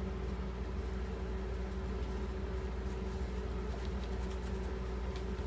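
A steady low hum with a faint higher tone held throughout, and a few faint clicks in the second half.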